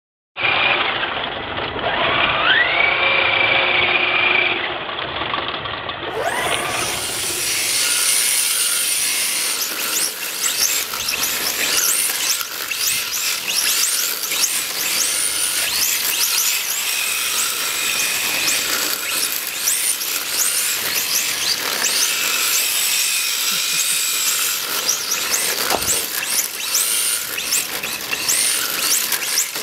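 Electric motors of 1/10-scale RC drift cars whining up and down in pitch as they speed up and slow down, with tyres scrubbing and squealing on asphalt while the cars slide.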